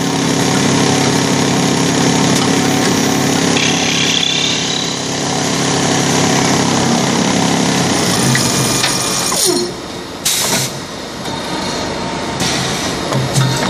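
MC2022 automatic wood ball lathe running: a steady motor hum under the dense noise of its cutters turning a wooden blank. About two-thirds of the way through the noise drops, with a short falling whine and a brief sharp burst, then it builds again as the next cut starts.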